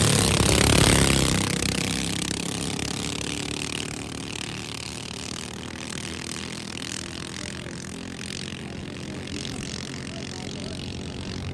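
Engines of small racing outrigger boats running hard at the launch, then fading over about two seconds as the boats speed away, leaving a steady engine hum and the rush of water.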